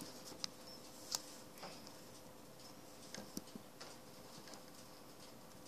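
A few faint, sharp clicks and ticks over a low steady hum.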